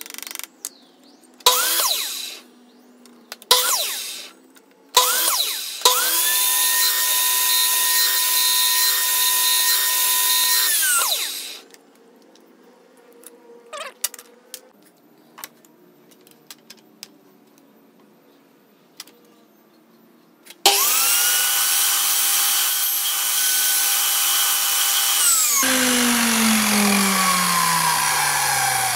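Stanley electric miter saw: the motor is blipped on three times briefly, then runs for about five seconds and winds down; after a pause it runs again while the blade cuts a small piece of wood, then coasts down near the end with a falling whine.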